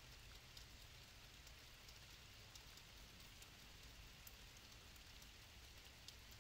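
Near silence: a faint steady hiss with scattered faint ticks.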